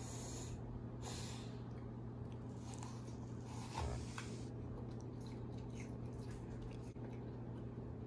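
Toddler biting into and chewing a raw apple: a few short noisy bursts, the longest about three to four and a half seconds in, with a brief thump near its middle. A low steady hum runs underneath.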